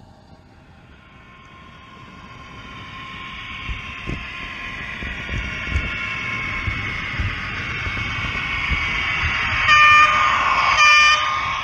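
A train's running noise builds steadily as it approaches. Near the end its horn gives two short blasts about a second apart.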